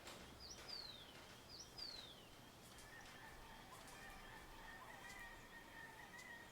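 Faint dawn birdsong: two falling whistled calls in the first two seconds, then a faint steady high tone with a lower line under it from about three seconds in.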